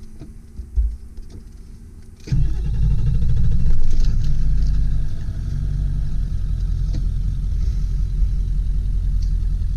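1999 Ford F-250 Super Duty's 7.3-litre Power Stroke turbo diesel V8 starting: it catches suddenly about two seconds in, swells up briefly, then settles into a steady idle. It starts with no problems.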